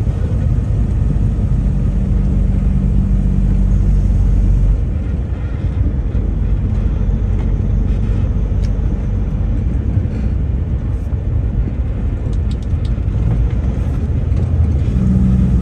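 A road vehicle driving, with engine and road noise as a steady low rumble. The engine's hum drops back about a third of the way in and comes up again near the end.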